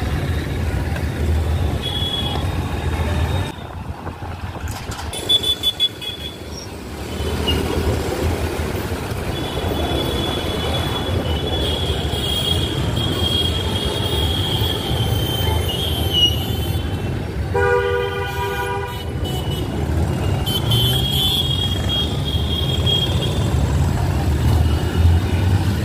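Road traffic noise with a steady low rumble, with a few brief loud knocks about five seconds in. A vehicle horn sounds once, about eighteen seconds in, for about a second and a half.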